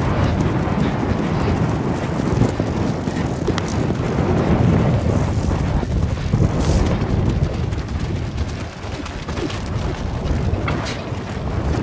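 Wind buffeting the microphone of a camera carried at the gallop on horseback: a steady low rumbling rush, with a few sharp knocks from the ride.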